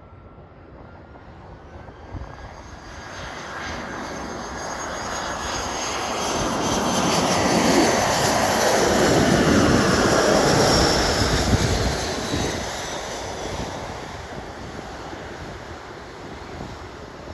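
Airbus A319ceo's twin jet engines on final approach: the engine rush and whine swell over several seconds, peak as the airliner passes close by with the pitch sweeping down, then fade as it sinks toward the runway.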